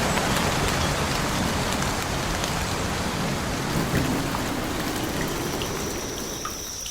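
Steady rain falling, a dense hiss of drops with scattered individual drop ticks, easing off slightly near the end.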